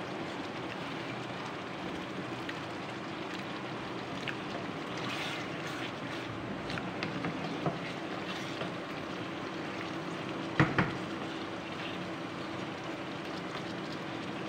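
Chicken and green capsicum frying in a karahi, a steady hiss, with a spoon stirring and scraping the pan in small clicks and one sharp knock about ten and a half seconds in.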